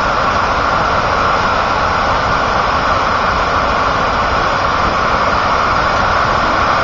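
Floodwater rushing over a dam's spillway, a loud, unbroken wash of noise.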